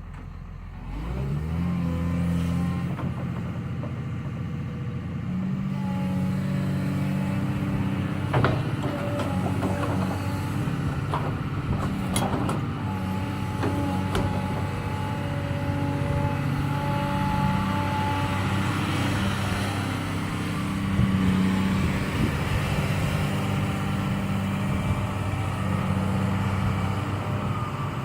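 Excavator's diesel engine revving up about a second in, then running steadily under load as the machine works. A few sharp knocks come through partway along.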